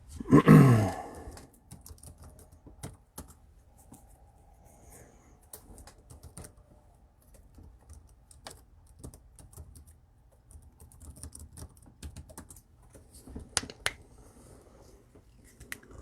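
Typing on a computer keyboard, irregular soft clicks with short pauses. It opens with a loud, short man's vocal sound falling in pitch.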